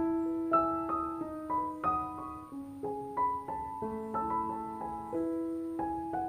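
Background piano music: a slow melody of separate notes, each struck and left to ring and fade.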